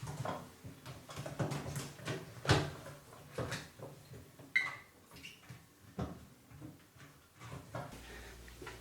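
Hand-work noises on a washing machine's door seal and drum opening: irregular knocks, clicks and scrapes of a screwdriver and hands against metal and rubber, with a brief squeak about four and a half seconds in.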